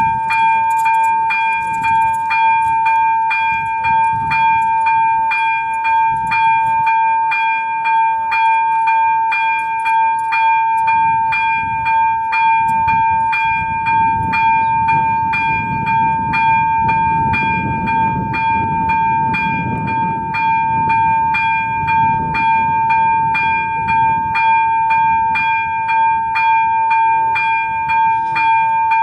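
Level-crossing warning bell (ZV-02 electronic bell on AŽD 71 crossing lights) ringing continuously at about two strokes a second over a steady ringing tone, signalling that a train is approaching. A low rumble swells in the middle and fades again.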